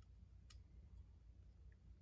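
Near silence with one faint click about half a second in, from small metal hardware handled by fingers on aluminium angle.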